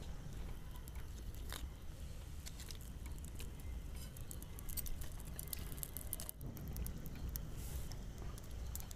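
Faint crisp crackling and light clicks as a lacy net pancake is peeled off a hot pan and rolled by hand, over a low rumble.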